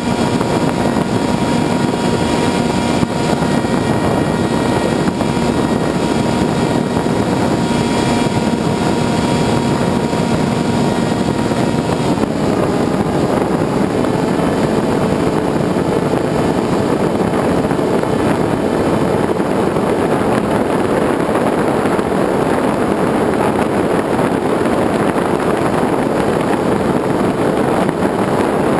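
Electric RC plane's 2200KV Turnigy brushless motor and propeller, heard from the camera on the plane itself: a steady whine over a loud rushing noise, shifting in pitch about twelve seconds in.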